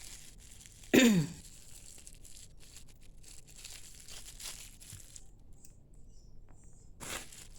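Thin plastic bag crinkling faintly as it is handled and tied shut, with a short falling vocal sound from a person about a second in.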